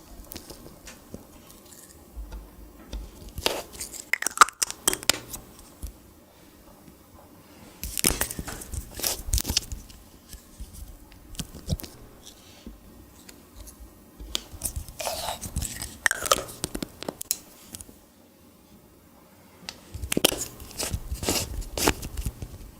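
Clear slime being pressed, stretched and squished by hand, giving sticky crackling, popping and squelching in four bursts of a second or two each, with quieter pauses between.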